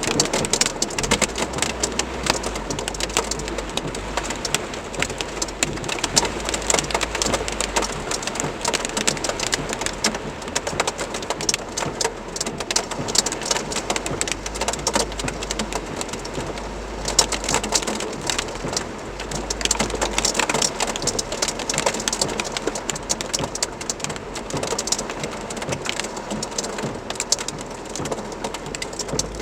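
Heavy downpour of rain mixed with hail, a dense continuous patter of small sharp impacts on surfaces.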